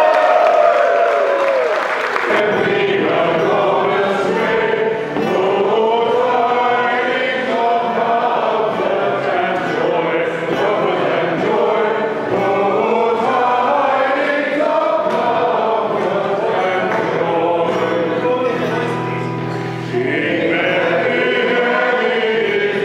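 A mixed group of voices singing together as a sing-along, accompanied by an acoustic guitar, with some hand-clapping in the first couple of seconds.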